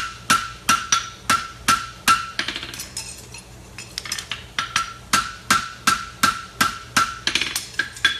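Farrier's hammer striking a horseshoe on an anvil in a steady rhythm, about two to three blows a second, each blow leaving a short metallic ring. About two seconds in, the blows give way to lighter, quicker taps for a couple of seconds before the full strikes resume.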